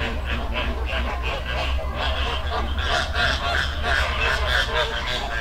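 A flock of American flamingos honking and chattering: many short, goose-like calls overlapping several times a second, growing busier and louder from about three seconds in, over a steady low rumble.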